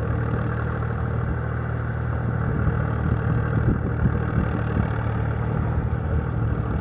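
Sonalika DI 745 III Sikander tractor's diesel engine running steadily as it pulls an implement through a flooded field.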